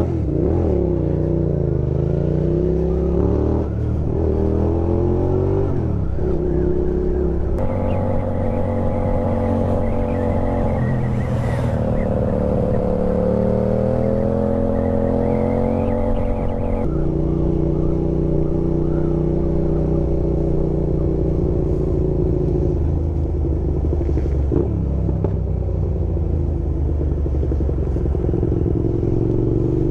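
Motorcycle engine running under way, its pitch rising and falling with throttle and gear changes. The pitch jumps abruptly twice.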